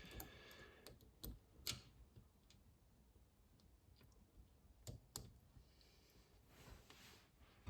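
Mostly near silence, broken by a few faint, sharp clicks of small tap parts being handled and refitted, two about a second and a half in and two more about five seconds in.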